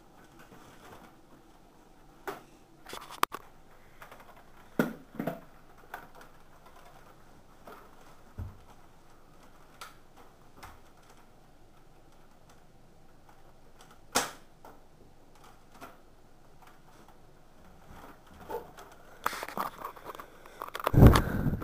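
Handling noise from a camera being moved about: scattered clicks and knocks, with a louder run of knocks and rustling near the end.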